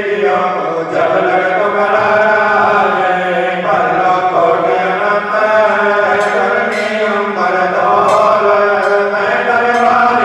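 Devotional chanting of the evening aarti, voices singing a sustained, gliding melody over a steady low drone.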